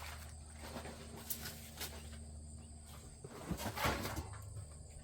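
Light rustling and small knocks of smoker parts being handled and lifted out of their packing box, with a louder rustle-and-clunk about four seconds in.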